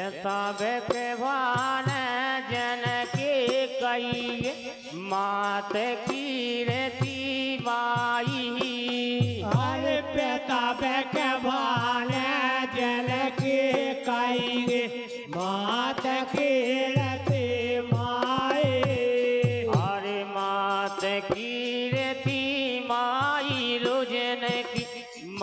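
Devotional folk bhajan: voices singing long, wavering held notes over the steady clacking of handheld wooden clappers (kartal).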